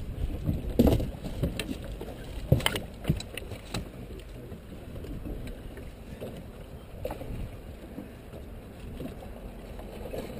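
Low rumbling noise of a small fishing boat on the water, with several sharp knocks and clicks in the first four seconds, the loudest about a second in and again about two and a half seconds in.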